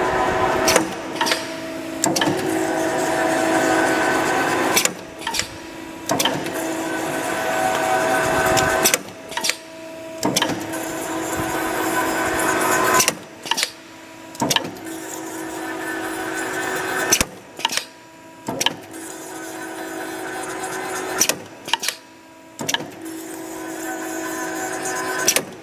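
Automatic CNC wire straightening, cutting and thread-rolling machine running through its cycle: a steady motor whine that grows louder over a few seconds, broken by a pair of sharp clacks about a second apart. The cycle repeats about every four seconds.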